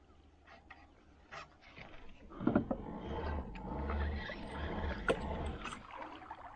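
Handling noise from an angler moving in a fishing kayak. A sharp knock comes about two and a half seconds in, followed by about three seconds of scraping, knocking and low rumbles that ease off near the end, after a few faint clicks at the start.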